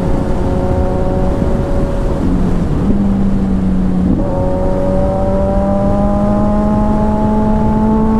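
Motorcycle engine running at riding speed. Its note dips briefly about two seconds in, then rises slowly and steadily as the bike accelerates, over a low rush of wind.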